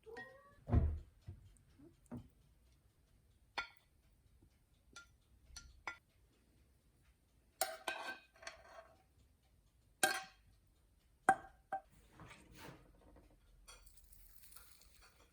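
Dishes and cutlery clinking in short, scattered knocks, some of them ringing briefly, with a dull thump about a second in: a cat's food being dished up into a bowl.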